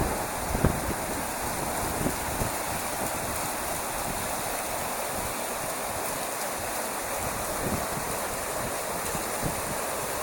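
Water rushing through a mill race and splashing off the paddles of a turning wooden waterwheel: a steady rush, with a few low thumps in the first couple of seconds.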